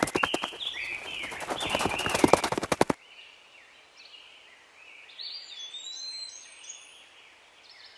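Birds singing, with whistled notes that glide in pitch. For the first three seconds, a rapid, irregular run of loud thumps plays over the birdsong, then cuts off suddenly, leaving only the quieter birdsong.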